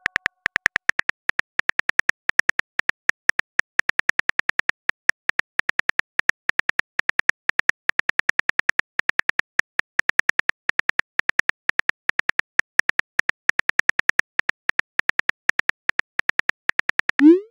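Phone keyboard typing sound effect: a rapid, even run of soft key clicks as a text message is typed out. It ends with a short rising swoosh as the message is sent.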